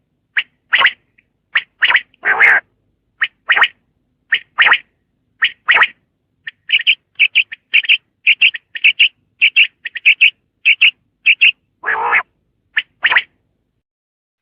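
Common quail calling: short, sharp notes in twos and threes, running faster and more clipped through the middle, with a couple of longer, harsher calls about two seconds in and near the end.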